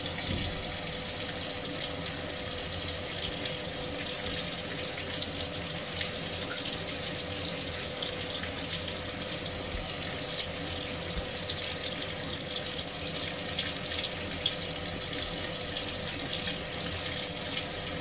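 Midea top-loading washing machine filling with water: a stream pours from the inlet into the tub with a steady splashing rush. A faint steady hum runs underneath.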